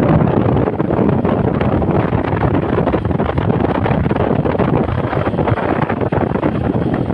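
Loud wind buffeting the microphone, a steady low rumble.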